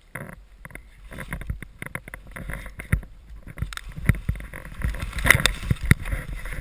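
Skis running through deep powder snow and brushing through low shrubs: a rough, uneven run of swishes and scrapes, loudest about five seconds in.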